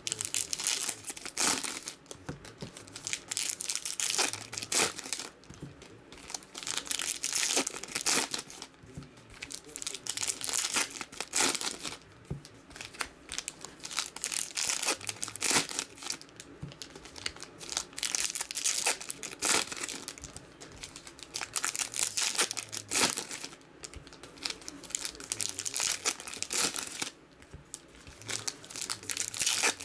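Foil wrappers of 2017 Playoff football card packs being torn open and crinkled by hand, in repeated bursts of crackling rustle a second or a few seconds apart.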